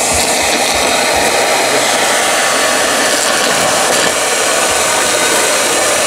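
Old vacuum cleaner running at full suction, a loud steady rush of air and motor through a clear cyclone separator attachment fitted into its hose, with torn paper scraps whirling inside the cyclone.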